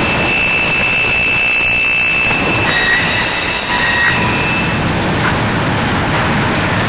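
Freight train's covered hopper cars rolling past on steel rails with a steady rumble. High, thin wheel squeals ring over it, changing pitch about three seconds in and dying away a second later.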